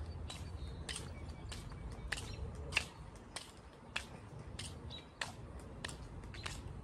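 Footsteps of a person walking on a concrete sidewalk: a sharp step at a steady walking pace, about one every 0.6 seconds. Faint bird chirps sound behind the steps.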